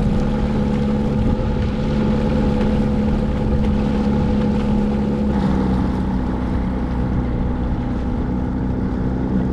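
Old 8 hp outboard motor running steadily as it pushes a small catamaran under way. Its note drops slightly about halfway through.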